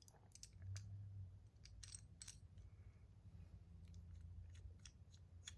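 Faint, scattered small clicks as buttons are fitted back onto a fidget spinner's bearing, over a low hum.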